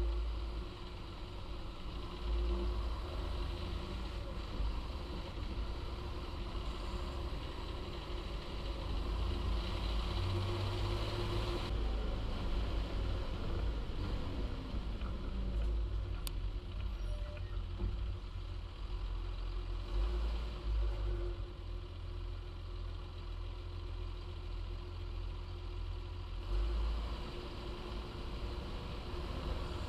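John Deere 6930 tractor's six-cylinder diesel engine running steadily with a deep low rumble; the sound changes abruptly about twelve seconds in.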